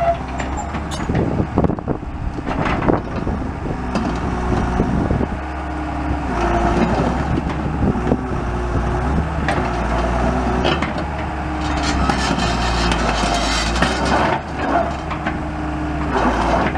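John Deere 690E LC excavator's six-cylinder turbo diesel engine running under hydraulic load as the machine is worked. A hydraulic whine steps up and down in pitch, with a few metallic knocks along the way.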